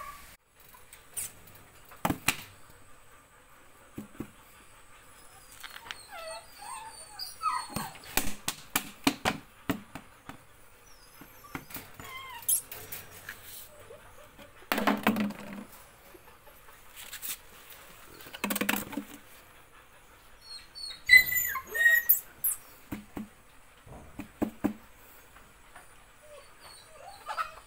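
Belgian Malinois puppies whining and yelping in short, high, wavering calls, among scattered knocks and clatters, with two louder thuds in the middle.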